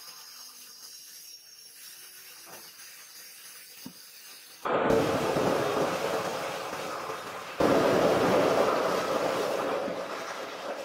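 Plastic blow-molding machine running: after a quiet stretch with a few faint clicks, a loud, steady rushing hiss starts abruptly about four and a half seconds in, jumps louder near eight seconds, then slowly eases off.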